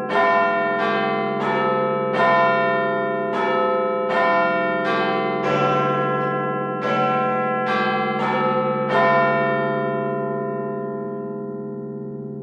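Big Ben clock-tower bells chiming a tune: a quick run of about fifteen strikes at changing pitches, each ringing on. The last strike comes about nine seconds in, then the bells ring out, slowly fading.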